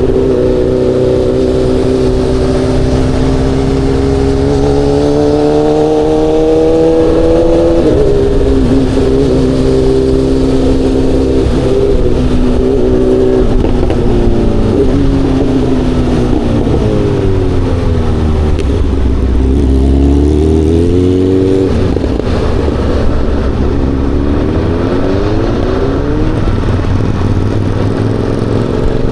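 Aprilia Tuono V4's V4 engine running under way. It rises in pitch through the gears with sudden drops at each upshift, then falls in steps as it downshifts about two-thirds of the way through, and climbs again near the end.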